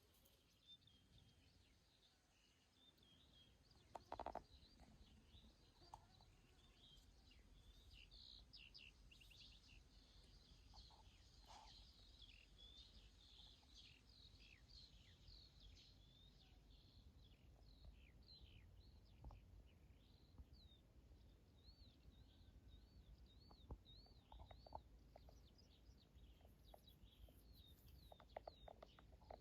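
Faint birdsong: many small birds chirping and whistling, with one louder short call about four seconds in and a run of quick repeated whistles near the end, over a low steady rumble.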